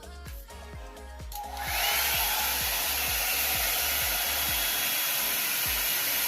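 Revlon One-Step hot air brush switched on about a second and a half in, its motor spinning up with a short rising whine into a loud, steady rush of air. Background music with a steady beat runs underneath.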